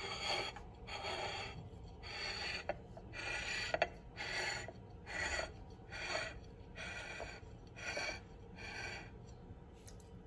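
Rasping, rubbing strokes repeating a little more than once a second, with a few sharp clicks among them, fading out near the end.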